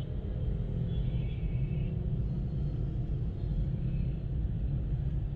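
Steady low rumble inside a car's cabin: the car's engine and road noise as it moves slowly through dense traffic.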